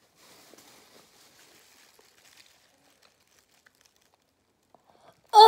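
Mostly quiet, with faint crackling early on. Then, about five seconds in, a girl gives a sudden, loud, high-pitched shriek of disgust at the taste of a barf-flavoured Bean Boozled jelly bean.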